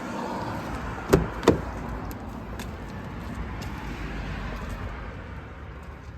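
Two sharp knocks, about a third of a second apart, a little over a second in, over a steady low background rumble.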